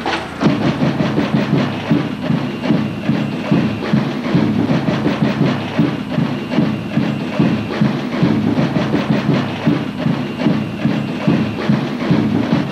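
Samba percussion playing a fast, steady beat, many quick strikes a second without a break.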